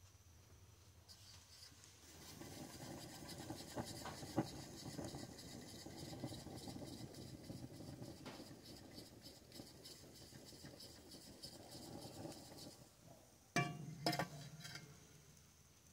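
Camp cookware being handled for coffee: a long stretch of faint scraping and rustling with small clicks, then a few sharp metallic clanks that ring briefly, about thirteen to fourteen seconds in.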